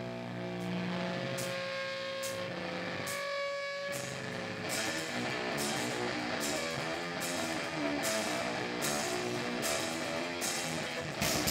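Live grindcore band with amplified electric guitar: held ringing chords at first, then a riff over regular cymbal hits about every two-thirds of a second. The full band comes in louder just before the end.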